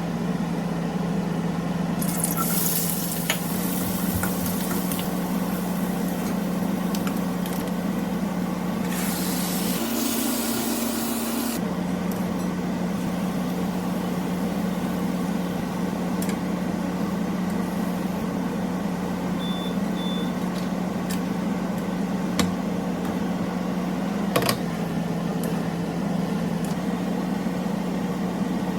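Chicken sizzling in a pan over a steady low hum, with louder hissing bursts about two seconds and ten seconds in, and a few light clicks.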